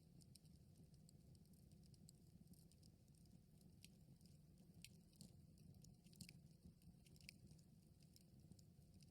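Campfire crackling faintly: scattered small pops and snaps, several a second, over a steady low rumble of burning, mixed with the 8D effect that circles the sound around the listener's head.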